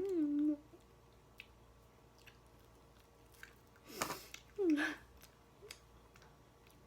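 A person chewing spicy ramen noodles with small wet mouth clicks. A held hum ends about half a second in, a sharp noisy sound comes about four seconds in, and a short falling moan follows: pained reactions to the burn of the chili.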